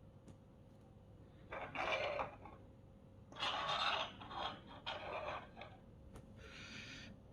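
Four brief scraping or rubbing sounds, each lasting about half a second, spaced a second or so apart.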